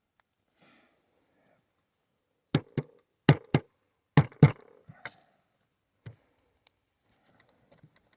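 Uberti replica Colt Paterson percussion revolver being handled while capped: sharp clicks in three quick pairs, then a single one, from about two and a half seconds in, with a few faint ticks after.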